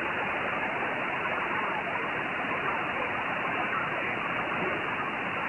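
Steady hiss of 10-metre band noise from a Kenwood TS-890 transceiver's receiver. It is an open SSB channel with the audio narrowed to a voice passband, and no station can be heard through the noise.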